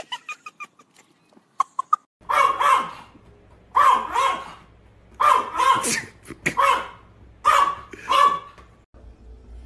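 A dog barking in five short bouts of about two barks each, starting about two seconds in and spaced roughly a second and a half apart.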